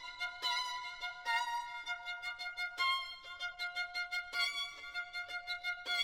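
Background music: a violin playing a melody of short, quickly changing notes.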